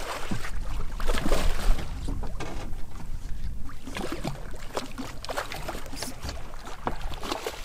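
Water slapping against a small fishing boat's hull, with scattered knocks and clicks and a low rumble that is heaviest in the first couple of seconds.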